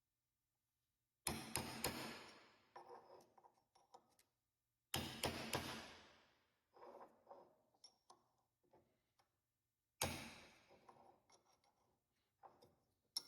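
Hammer striking a steel punch to drive an old shaft seal out of a John Deere 450D dozer winch: four quick clusters of sharp strikes, a few seconds apart, each dying away over about a second.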